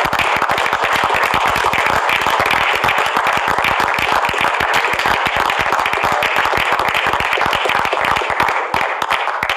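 A small group of people applauding, a dense steady patter of hand claps that thins out near the end.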